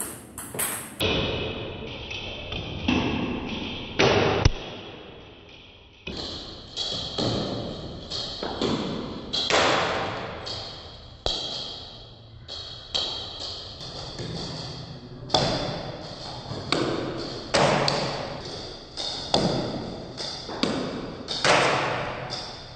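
Table tennis ball hits and bounces slowed down in a slow-motion replay, heard as a long series of deep thuds at uneven intervals, each ringing out for about a second.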